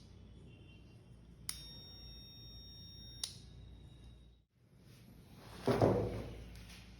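A metal part struck twice, each tap leaving a high, bright ringing that is cut off suddenly. Near the end comes a louder, noisier scrape or rustle.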